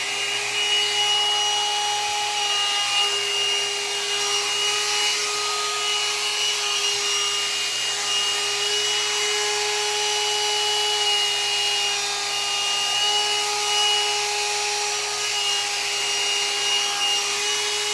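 Handheld hot-air dryer brush running on its high setting: a steady motor whine over the rush of air.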